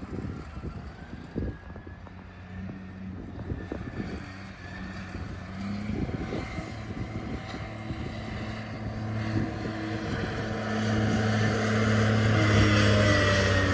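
An engine running and growing steadily louder, with a high whine that rises in pitch. There are several knocks in the first few seconds.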